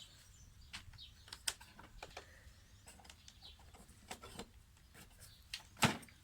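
Faint scattered clicks and light clinks of metal hand tools being picked up and handled, the thin cone wrenches used on a bicycle hub's axle nuts, with a sharper clink near the end.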